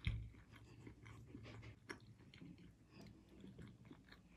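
Faint chewing of a mouthful of soft stewed beef, potatoes and rice, with small wet clicks of the mouth and a light tap of a fork on a plate right at the start.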